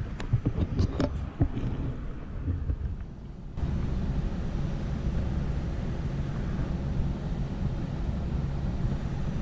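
Wind buffeting the microphone as a low rumble, with a few knocks from the camera being handled; about three and a half seconds in the rumble suddenly gets louder and stays steady.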